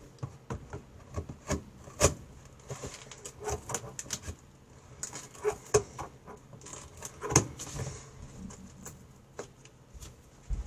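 Packing tape being picked at and peeled by hand off a cardboard box: irregular scratching, clicks and taps, with a couple of short rasping tears.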